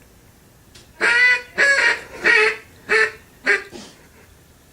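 Duck call sounding a hail call: five loud, nasal quacks about half a second apart, starting about a second in, the last ones shorter.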